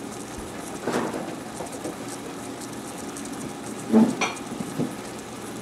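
Ground beef sizzling steadily as it browns in its own grease in an enamel stockpot, with two brief louder sounds, one about a second in and one around four seconds in.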